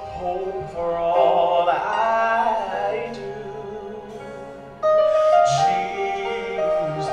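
Male gospel soloist singing into a microphone, with wavering runs and long held notes over sustained chords. The music grows softer through the middle and comes back in louder just before five seconds in.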